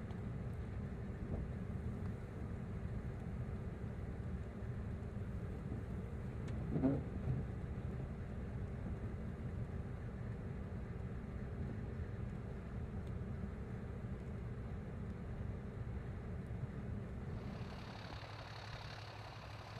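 A vehicle engine running steadily with a low rumble. About seven seconds in there is a brief higher-pitched sound, and near the end the rumble drops away while a steady hiss comes in.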